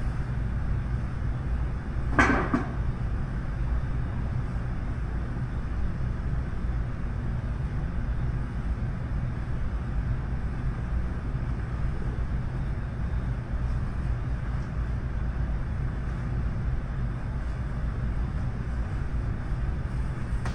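Blizzard wind buffeting the microphone as a steady low rumble, with one sharp knock about two seconds in.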